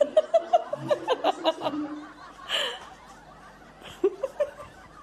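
Stifled laughter: a quick run of short giggles over the first couple of seconds, then a breathy burst and one short voiced laugh.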